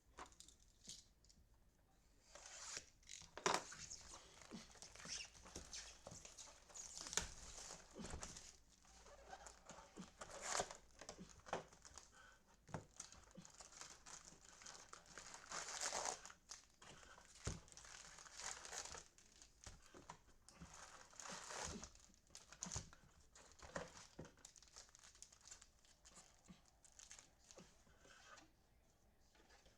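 Plastic and paper trading-card packaging crinkling and tearing as a 2021 Topps Series 1 hobby box is unwrapped and opened. It comes as irregular rustles with sharp crackles, starting about two seconds in.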